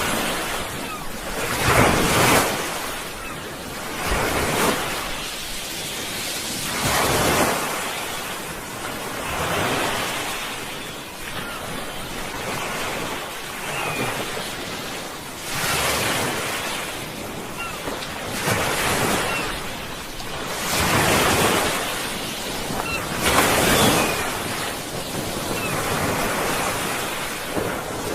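Sea waves breaking and washing ashore, in repeated surges every two to three seconds, some stronger than others.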